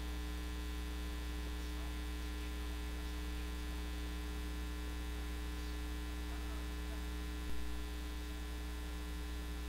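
Steady electrical mains hum, a low buzz with a stack of overtones, on the recording line, with one brief soft sound about seven and a half seconds in.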